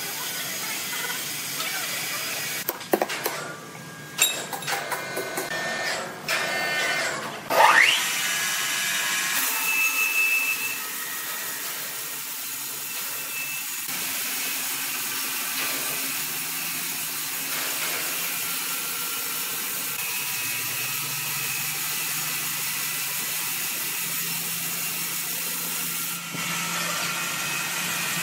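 Large band sawmill cutting through a big log: a steady hiss of the blade in the wood with a faint high tone, starting about ten seconds in. Before that, scattered knocks and clatter.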